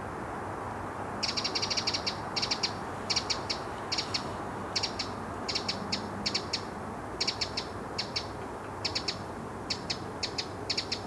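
Eurasian wren giving dry ticking calls in quick clusters of two to four ticks, roughly one cluster a second, starting about a second in, over a steady low hiss.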